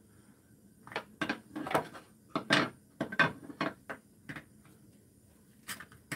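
A wooden spoon clacking and scraping against a glass mixing bowl while stirring thick kimchi pancake batter. It comes as a quick run of knocks, about three a second, with one more near the end.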